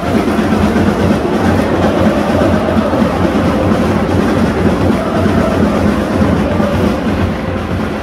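Football supporters in the stands chanting and singing together, a loud continuous mass of voices.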